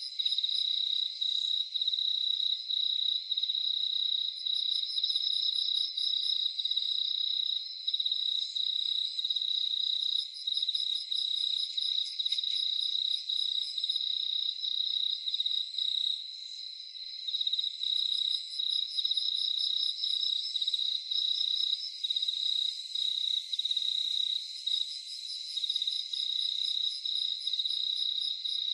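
A chorus of crickets calling: one steady high trill with brief dropouts, with other insects adding pulsed chirping a little higher. Short runs of still higher, rapid pulses come and go every few seconds.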